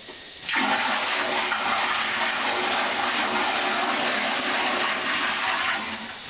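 A bucket of water poured into a newly set toilet pan, gushing down the bowl into the drain for about five seconds, then trailing off. The water washes any cement out of the waste pipe and fills the trap to form a water seal.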